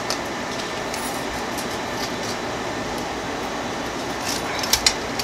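Steady hum of a room air conditioner, with light clicks and taps as small metal book-corner protectors are moved about on a tabletop; two sharper clicks come near the end.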